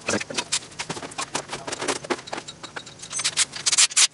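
Metal clinking and scraping of tools and bolts working at the main bearing caps of a freshly fitted crankshaft in an engine block, with a fast run of sharp clicks near the end.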